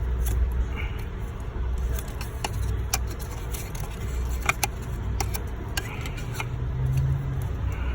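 Scattered clicks and light rattles of hard plastic and rubber fittings being handled as the stock turbo blow-off valve is pulled free of its hoses, over a steady low rumble.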